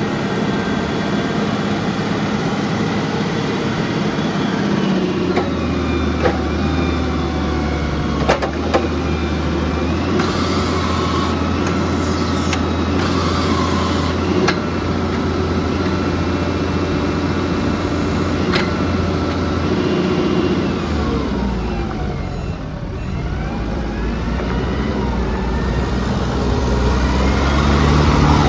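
Cat PD9000 forklift's diesel engine running steadily while the mast is worked and the truck drives, with a few sharp clanks along the way. Its note dips and then climbs again near the end as the truck moves off.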